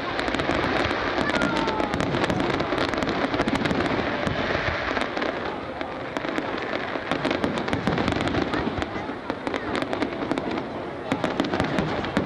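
Fireworks display: a continuous rapid crackling and popping of bursting shells and fountains, many small reports packed close together.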